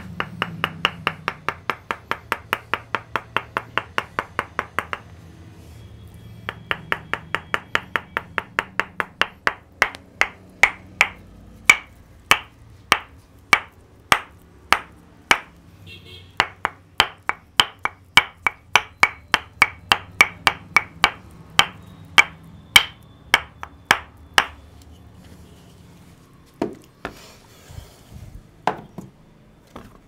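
Tok Sen massage: a wooden mallet knocking on a wooden wedge held against a person's back. The knocks come in a quick run of about five a second, pause briefly about five seconds in, then resume and slow to about two a second, with a few scattered knocks near the end.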